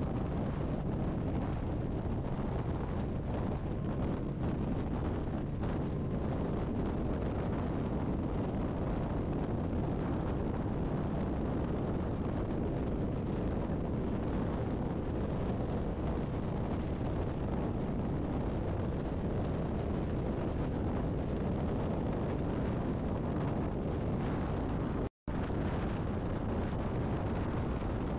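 Steady highway road and wind noise from a vehicle moving at speed, with wind buffeting the microphone. The sound cuts out completely for a moment near the end.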